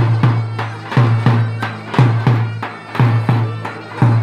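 Live davul drum music: the big drum beats a steady pattern of two strokes about a third of a second apart, once every second, each with a deep boom, while a wind instrument plays a continuous melody over it.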